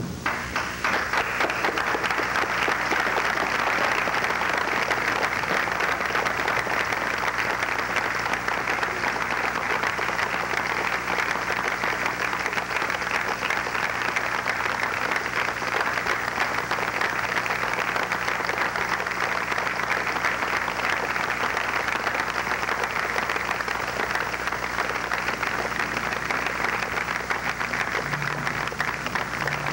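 Audience applauding steadily and at length, a dense even clatter of many hands. A few low instrument notes sound near the end.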